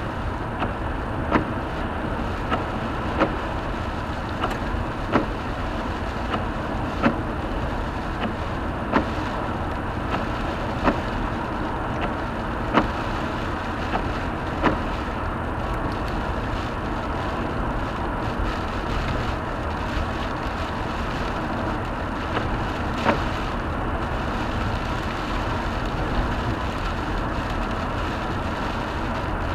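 Steady road and tyre noise inside a moving car on a country road. A sharp click sounds about every two seconds through the first half, then only now and then.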